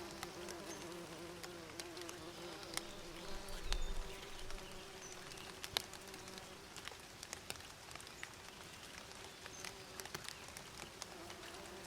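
Bees buzzing in a steady, wavering hum, with scattered small clicks and a few faint short high bird chirps. A brief low rumble comes about four seconds in.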